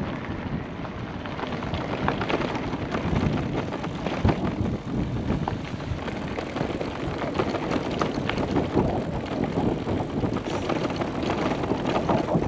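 Steady low rumble with no clear pitch or distinct events.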